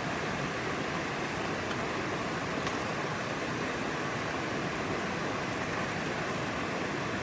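Steady, even rush of running water, holding at one level throughout.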